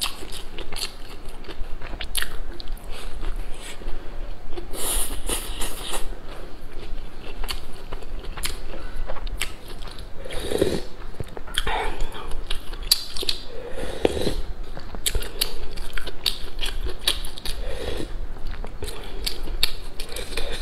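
Close-miked eating sounds: chewing and biting with many short wet mouth clicks, joined from about halfway through by a few louder sips of soup from a metal spoon.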